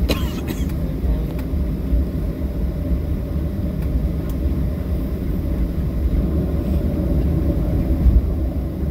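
Cabin noise of a Boeing 737-700 taxiing: a steady low rumble from its CFM56 engines at taxi power and the rolling gear. A few faint clicks come in the first second.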